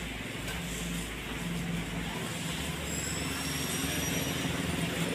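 Room noise of a busy clothing shop: a steady low hum under an even wash of indistinct background noise.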